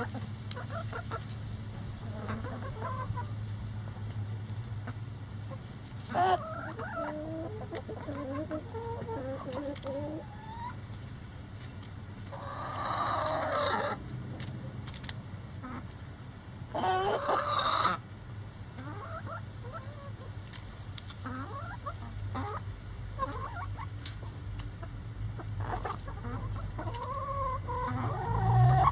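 A flock of backyard hens and roosters clucking steadily, with two louder, longer calls a few seconds apart about halfway through.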